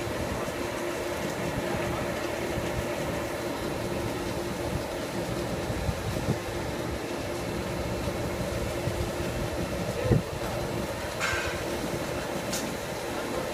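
Steady hum of industrial welding-yard machinery with one constant tone running through it. A dull thump comes about ten seconds in, followed by a couple of short, sharp metallic sounds near the end.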